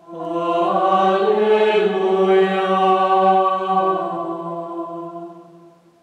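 Mixed choir singing a cappella in slow held chords: the voices come in together, swell, move to new chords a couple of times, then fade away to nothing near the end as the piece closes.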